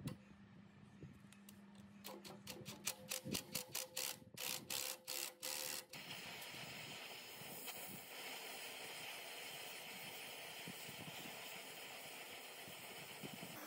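A quick run of sharp metallic clicks that turns into short rasping bursts. About six seconds in, a steady hiss from an oxy-acetylene torch flame takes over. The torch is heating the hub of a seized cooling fan on an old three-phase motor so that the gear puller can free it.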